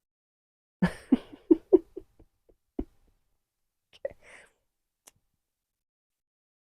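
A man's short, soft vocal sounds in quick succession. A breathy rustle follows about four seconds in, then a faint click.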